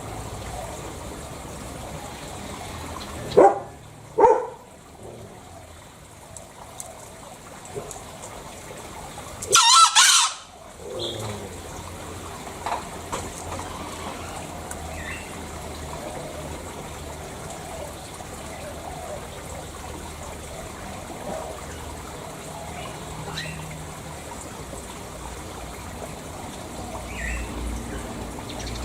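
Green junglefowl calls: two short calls about three and four seconds in, then a loud, high, brief call about ten seconds in, with a few faint calls over steady background noise for the rest.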